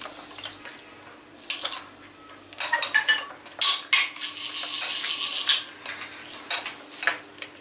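A spoon stirring mashed-eggplant baba ghanoush in a ceramic bowl, scraping and clinking against the bowl in irregular strokes, busiest in the middle stretch.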